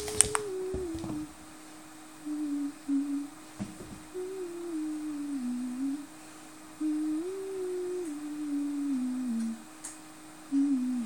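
A person humming a slow tune in low, stepping phrases with short pauses, over a faint steady tone. A sharp click or knock sounds right at the start.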